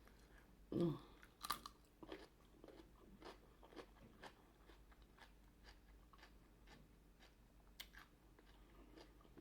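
A person chewing food close to the microphone, with wet mouth clicks about twice a second. A louder bite or mouth sound comes about a second in.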